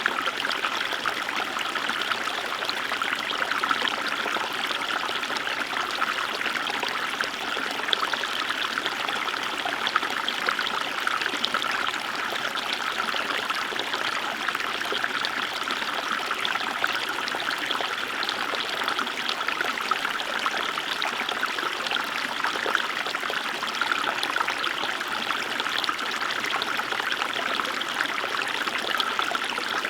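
Small river rippling and trickling steadily, a continuous bright babble of shallow flowing water.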